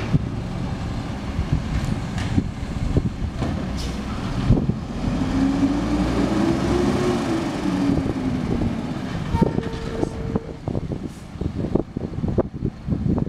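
Mack automated side-loader garbage truck running, its diesel engine steady, with a whine that rises and then falls about halfway through as the hydraulics work. Several sharp knocks near the end as the side arm lifts and tips a wheeled cart.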